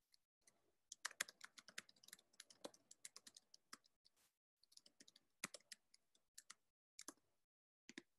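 Faint typing on a computer keyboard: a quick, irregular run of key clicks for a few seconds, then a few scattered keystrokes.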